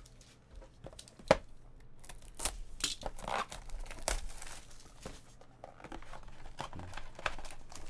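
Plastic shrink wrap being torn and crinkled off a sealed trading-card box, in irregular crackles, with one sharp click about a second in.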